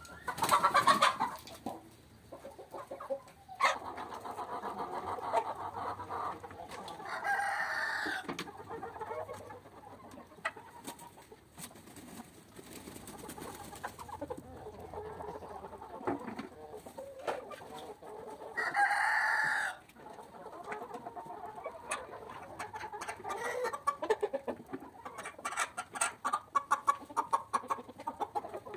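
Chickens clucking, with a rooster crowing twice, each crow lasting about a second. A run of short sharp taps comes near the end.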